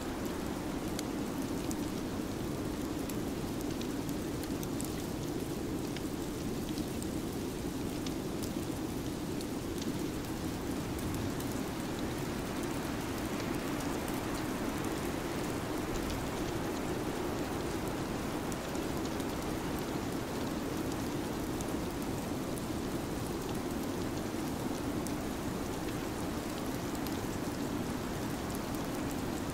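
Steady, even rushing noise of a winter-storm ambience track, with faint scattered ticks throughout.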